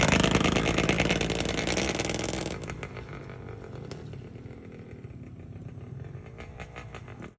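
Enduro dirt-bike engine running, loud at first and then dropping away sharply about two and a half seconds in, leaving a faint engine sound with scattered clicks.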